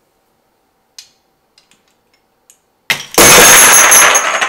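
A few light clicks of metal washers being stacked. Then the 3D-printed snap hook breaks and the hanging load of about 3.7 kg of metal washers crashes down about three seconds in, in a loud, ringing metal clatter lasting over a second.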